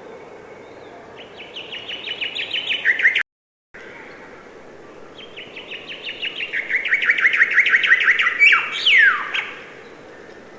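A songbird singing two songs, each a fast run of repeated chirping notes that speeds up and drops in pitch. The first breaks off abruptly in a brief total dropout; the second ends in a loud flourish that sweeps steeply downward.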